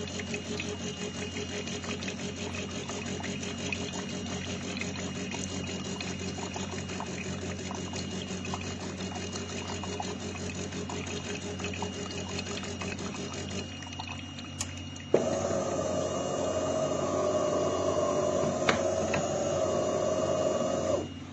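De'Longhi Magnifica S automatic espresso machine running: a steady, buzzing pump sound for about fourteen seconds, a brief lull, then from about fifteen seconds a louder, higher-pitched steady running sound that cuts off suddenly near the end.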